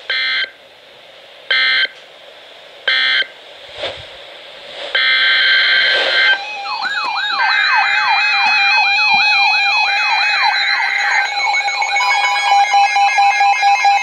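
Three short digital data bursts from NOAA Weather Radio, the end-of-message code of an emergency alert. About five seconds in a longer data burst sounds, and then several weather alert radios go off together: a rapid rising warble repeating about twice a second over steady beeps, growing denser near the end.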